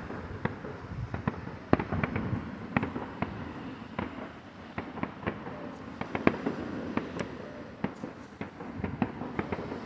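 Fireworks going off: an irregular string of sharp pops and crackles, several a second, with no single very loud bang.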